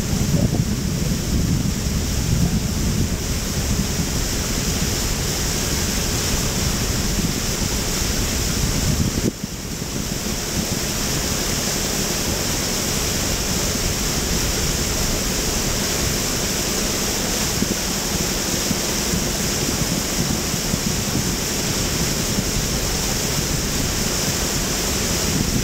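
Steady wind rushing over the microphone with a low rumble underneath. It briefly drops out about nine seconds in.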